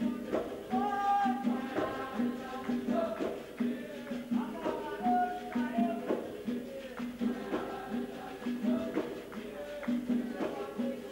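Capoeira angola roda music: berimbaus striking a repeating low note in a steady rhythm, a pandeiro jingling and slapping, and a voice singing over them.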